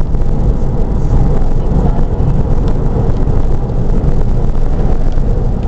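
Steady low rumble of road, wind and engine noise inside the cabin of a 2001 Porsche Boxster S on the move.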